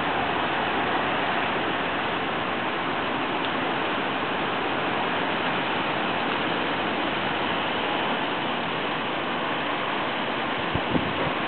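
Heavy rain of a thunderstorm downpour falling steadily, a dense even hiss. A couple of small knocks near the end.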